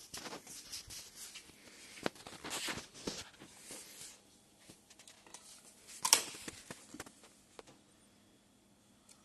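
Rustling and knocking of a charger and its cable being handled while someone walks, then a sharp click about six seconds in as the charger's plug is pushed into a wall socket.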